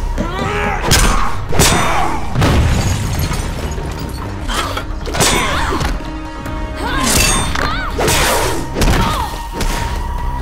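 Animated fight soundtrack: dramatic score over a series of heavy thuds, booms and crashing impacts as bodies are slammed into rock.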